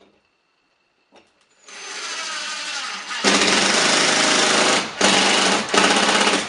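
Cordless impact driver driving screws into the wooden backing behind a drywall patch. The motor whine rises about two seconds in, then a much louder hammering rattle sets in about a second later, broken by two short pauses near the end.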